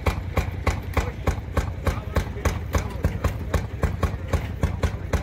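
Small railroad speeder engine idling with a quick, even putt-putt of about six beats a second.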